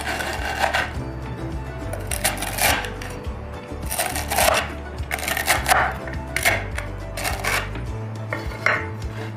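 Chef's knife chopping wheat crackers on a wooden cutting board: a series of uneven crunching chops, some in quick pairs, with background music underneath.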